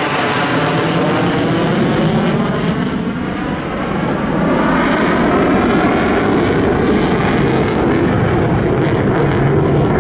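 F-15 fighter's twin F100 turbofan engines running loud on afterburner as the jet banks away overhead. A dense jet rush with a sweeping, phasing quality, turning duller about three seconds in as the aircraft draws away.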